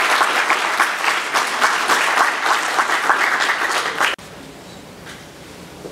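Audience applauding at the end of a talk: dense clapping that cuts off abruptly about four seconds in, leaving quiet room sound.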